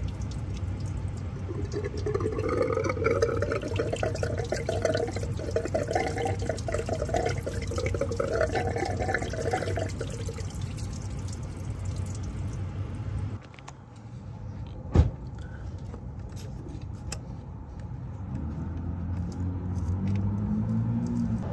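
Engine coolant pouring and splashing out of the Civic's opened thermostat housing for several seconds, then dying away. A single sharp knock follows, and a low hum comes in near the end.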